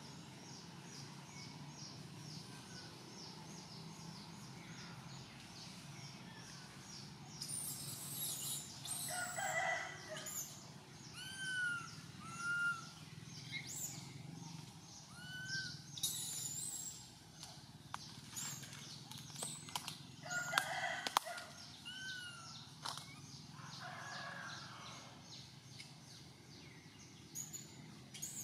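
Baby long-tailed macaque crying: a series of loud, short, high-pitched squealing calls, each rising and falling in pitch, beginning about seven seconds in and coming in bouts. They are the distress cries of an infant denied its mother's milk. A rhythmic high chirping runs in the background, heard alone in the first seconds.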